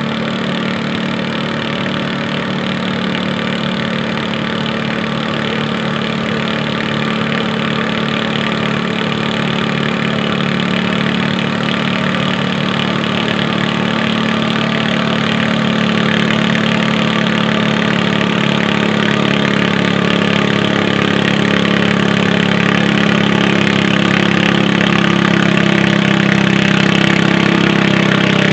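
Garden tractor engine running steadily under load while pulling a weight-transfer sled, growing slowly louder as it nears.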